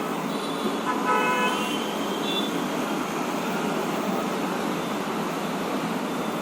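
Steady background road traffic noise, with a short vehicle horn toot about a second in.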